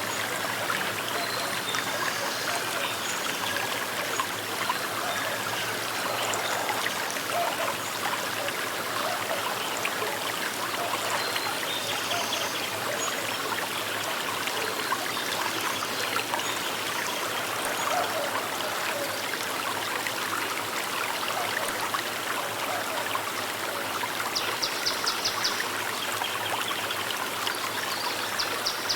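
Small river flowing steadily, the continuous sound of running water. Near the end a rapid high trill comes in twice.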